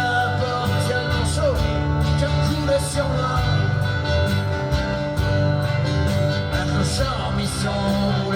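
A song with guitar over a steady beat and sustained bass notes.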